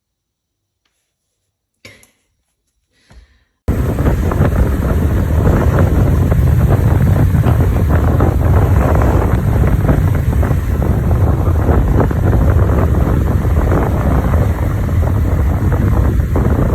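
Near silence with two brief faint sounds, then about four seconds in a loud, steady wind noise buffeting the microphone starts abruptly.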